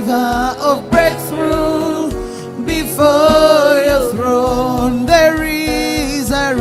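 Gospel worship music: a sung melody over keyboard chords with a steady bass beat.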